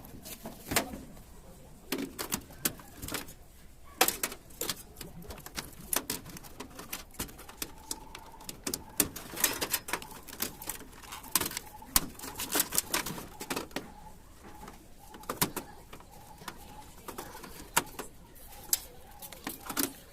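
Irregular sharp clicks and knocks of computer hardware being handled, about one to several a second, with a faint steady tone underneath in the second half.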